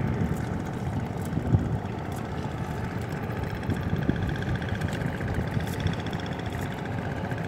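Boat engine running steadily, a low continuous rumble.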